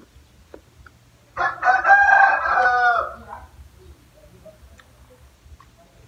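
A rooster crowing once: a loud call of about two seconds starting a little over a second in, falling in pitch at its end.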